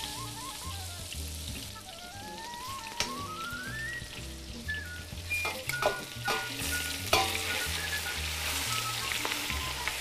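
Cubes of raw beef searing in hot butter and fat in a stainless steel stockpot, sizzling, with the sizzle growing louder about halfway through as more meat goes in. There are a few sharp metallic clicks from the tongs and pot as the pieces are placed, over light background music.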